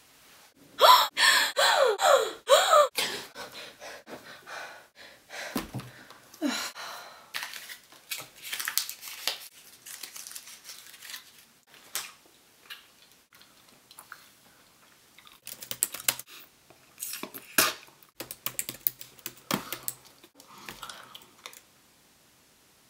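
Typing on a laptop keyboard: scattered key clicks, with a quick dense run about two thirds of the way through. Near the start, a short burst of vocal noises with falling pitch is louder than the typing.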